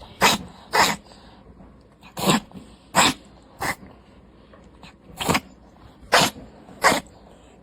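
A Devon Rex cat coughing: about eight short, dry, sharp coughs, often in quick pairs, with nothing brought up. The owner's vet put this recurring cough down to chronic lung inflammation rather than asthma.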